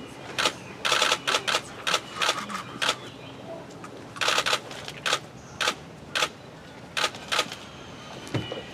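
Camera shutters clicking irregularly, roughly one to two a second, some fired in quick runs of several frames.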